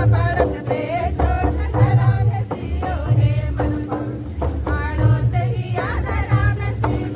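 A group of women singing a folk song together in phrases, with a double-headed hand drum beating a steady rhythm underneath.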